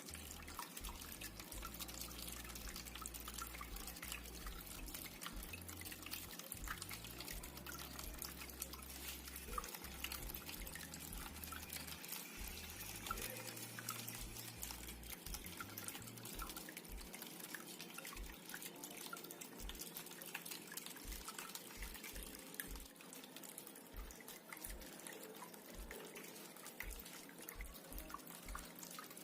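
Water trickling and dripping in a small cement tabletop waterfall fountain, a faint, steady patter of many small drops.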